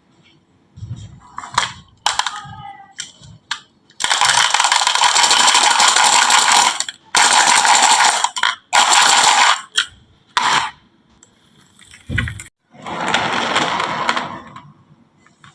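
Marbles rolling and clattering down a wooden HABA marble-run track. A few sharp clicks come first, then long stretches of continuous rolling rattle with short gaps between them, and a low thud about twelve seconds in.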